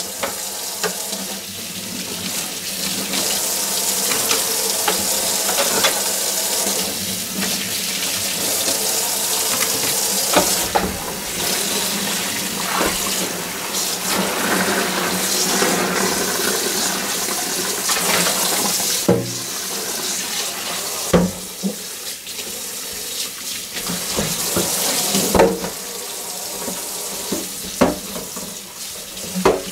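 Kitchen tap running steadily into a stainless steel sink while a colander and dishes are scrubbed and rinsed, with a few sharp knocks as they are handled.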